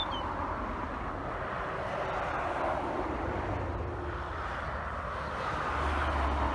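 Steady jet engine noise from an airliner on the runway, mixed with a van driving past close by; a low rumble grows stronger near the end.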